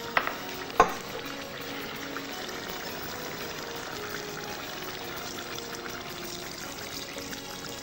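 Water poured from a glass jug into a casserole of simmering pheasant stew, over a steady sizzling bubble from the pot. Two sharp knocks come in the first second.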